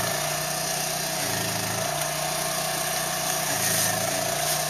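Steady roar of a portable butane cassette stove's burner heating a pot of instant noodles, with a low steady hum underneath.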